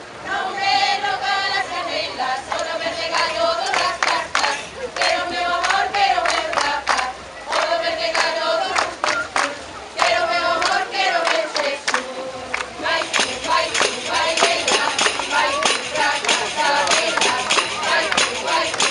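A group singing a lively Galician folk song together, with pandeiretas (Galician tambourines) beating the rhythm in sharp regular strikes. The sound fills out and gets brighter about two-thirds of the way in.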